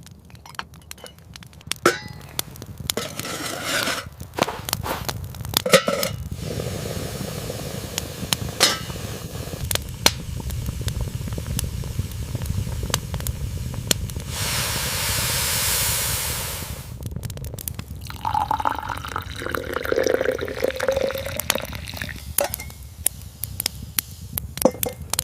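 Dishes and cups clinking, with liquid being poured, over a steady low rumble. Scattered sharp clicks run throughout, and a hiss lasting a couple of seconds comes about midway.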